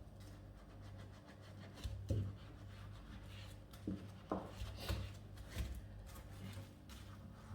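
Sponge scrubbing a cooker's surface to lift grime: irregular rubbing strokes and a few light knocks, over a low steady hum.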